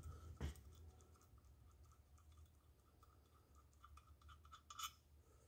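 Near silence with faint clicks and light scratching of small metal parts being handled at an engine's oil pump: a sharper click about half a second in, a run of small ticks, and another click near the end.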